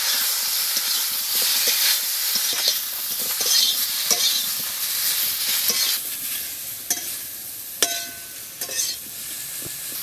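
Dried pomfret pieces sizzling in hot mustard oil in a metal wok, with a long metal spatula scraping and tapping the pan as they are turned. The sizzle eases off a little about six seconds in, and one sharp tap near the end rings briefly.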